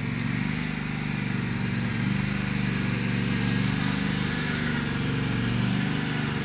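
Riding lawn mower's engine running steadily while it tows a small cart of riders.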